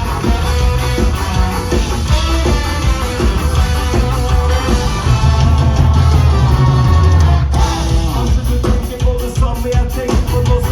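Live rock band playing loud, with singing, electric guitar and drum kit. About seven and a half seconds in the full sound drops away and the drums carry on with sharp strokes.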